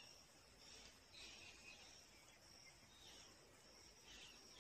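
Near silence, with faint high chirping repeating in the background.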